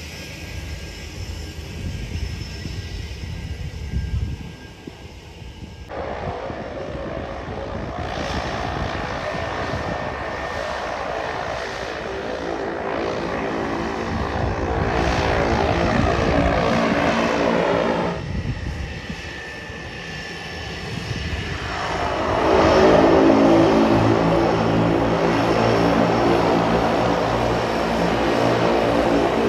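Cessna 208B Grand Caravan's PT6A turboprop engine and propeller running as the plane taxis. A low rumble at first; about six seconds in the steady hum of the propeller comes in and grows louder, drops back briefly past the middle, then swells to its loudest about three-quarters of the way through.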